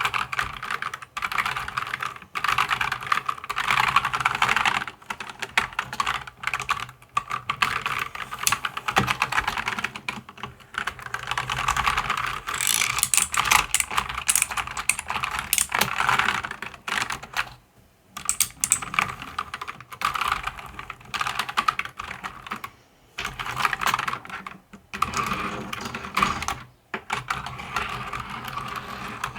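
Typing on a mechanical keyboard: dense runs of rapid key clicks, broken by short pauses every few seconds.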